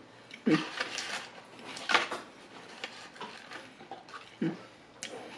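Cardboard fast-food boxes being handled on a table: scattered rustles and light taps, with a few sharper clicks about half a second, two seconds and four and a half seconds in.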